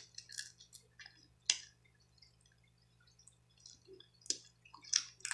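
Sparse wet clicks and small cracks of boiled blue crab shell being picked apart by hand for the meat, with louder snaps about a second and a half in and again near the end.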